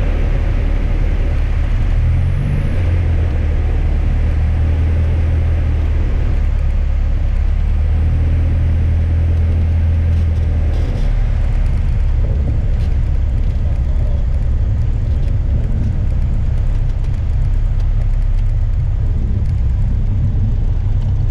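Piper PA-28 light aircraft's engine and propeller running steadily, heard from inside the cabin as the plane rolls along the runway. The low drone grows louder about two seconds in and eases back about ten seconds in.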